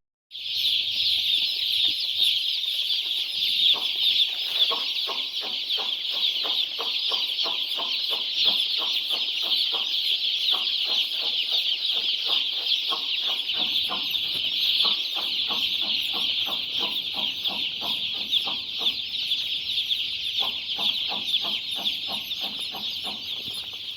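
A large flock of chickens on a poultry farm: a dense, unbroken mass of high cheeping with many short clucks mixed in.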